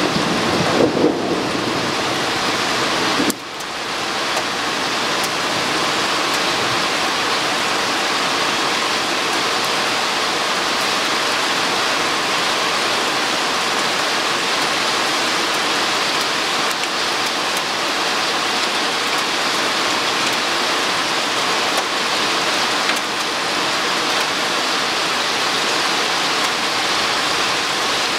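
Heavy rain pouring steadily in a thunderstorm, an even hiss, with a rumble of thunder dying away in the first second or two.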